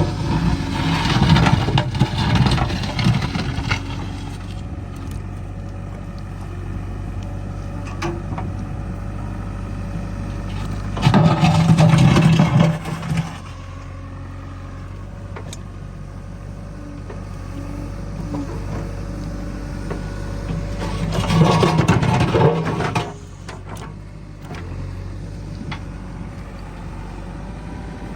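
JCB 3DX backhoe loader's diesel engine running steadily, revving up under hydraulic load three times, roughly every ten seconds, as the backhoe works.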